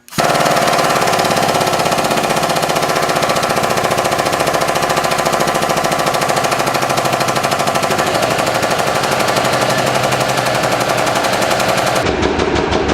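Hydraulic press pump running under load as the ram comes down on CO2 cartridges. It is a loud, steady, fast mechanical chatter that starts suddenly.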